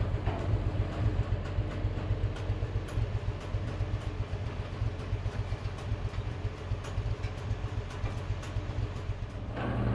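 Boat travelift's engine running steadily with a fast, uneven pulsing, getting louder near the end.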